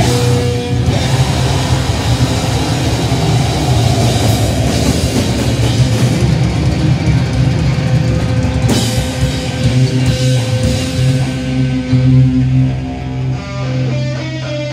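A grindcore band playing live and loud: distorted electric guitar, bass and a drum kit with cymbals. The level dips slightly near the end.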